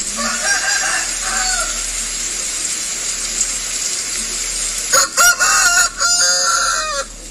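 Gamecock rooster giving a few short low calls, then crowing once loudly about five seconds in, the crow running about two seconds in several pitched phrases.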